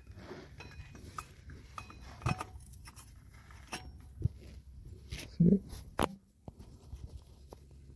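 Hand tools and metal parts handled under the car: scattered light clicks and clinks, as when the oil filter housing removal tool is readied and fitted. A brief low sound about five seconds in.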